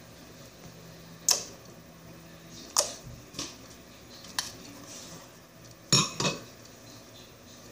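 Hands pressing and poking a ball of slime on a tabletop, making a handful of sharp pops and clicks. The one about six seconds in is a quick crackling double pop.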